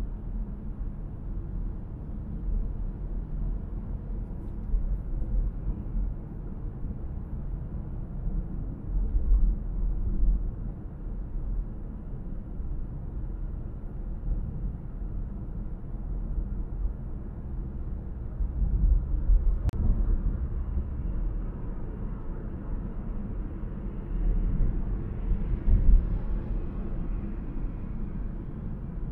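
Steady low rumble of a car driving on city roads, engine and tyre noise. There is a single sharp click about two-thirds of the way through, and near the end a sound swells and fades, such as passing traffic.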